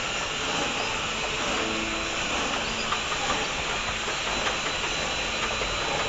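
Steady hiss of bottling-line machinery running on a factory floor, with a few faint clicks.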